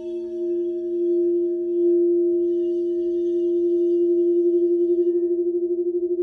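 Quartz crystal singing bowl sung by a wand circled around its rim. Several tones sound together as one steady hum that swells over the first two seconds and then holds, with a quick pulsing waver that grows stronger near the end.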